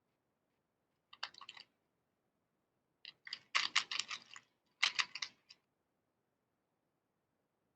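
Rapid clicking in three short bursts, a brief one about a second in, then a longer run and a shorter one.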